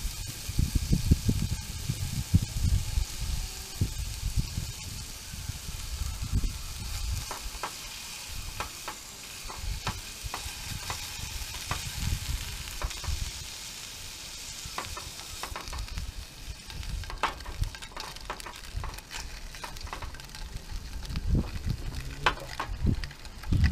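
Mackerel fillets sizzling in a hot frying pan on a portable gas stove, a steady hiss that eases a little past the middle. Scattered clicks and scrapes come from a knife against the pan as the fillets are turned, and there are low rumbles in the first few seconds.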